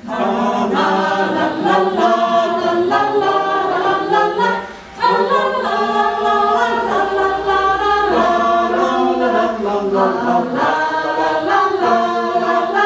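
A group of people singing a song together, in held sung phrases with a short break about five seconds in.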